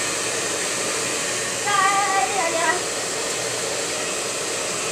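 Handheld hair dryer blowing steadily. A voice sounds briefly about two seconds in.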